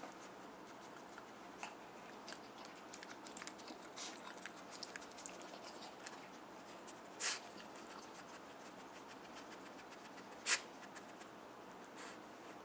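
Small dog pawing and nosing at a treat-stuffed sock snake toy on carpet: soft scratching and rustling with many faint clicks, and two louder brief scuffs about three seconds apart.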